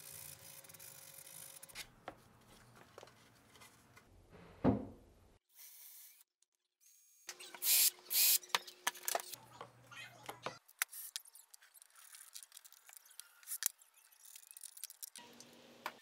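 Woodworking sounds in sequence: a sanding sponge rubbed by hand along the edge of a walnut-veneered panel, a single thump, then a cordless drill running for about three seconds as it bores a cup hole for a concealed hinge through a clamped plastic jig, followed by light clicks and knocks.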